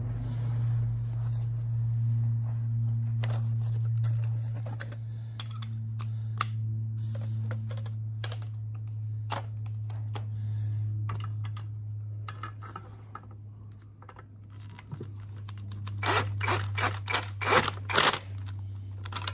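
Metal tools clicking and tapping as a socket and long extension are fitted to the inlet manifold bolts. Then, near the end, a cordless power tool runs in several short bursts as it drives a bolt in. A steady low hum runs underneath.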